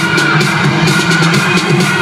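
Loud electronic dance music from a DJ set over a club sound system, with a steady beat and little deep bass.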